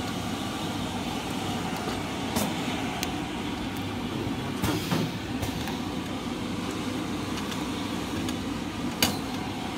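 Steady running noise of an automatic L-type shrink wrap machine's heat-shrink tunnel and roller conveyor, with a few light knocks as the wrapped tape rolls are handled on the rollers.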